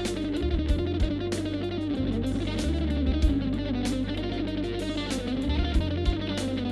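Hollow-body electric guitar playing a winding single-note melody over held low bass notes, with sharp percussive ticks throughout.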